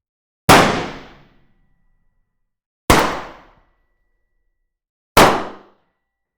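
Three single gunshots fired indoors, about two and a half seconds apart, each followed by a short room echo that dies away in under a second.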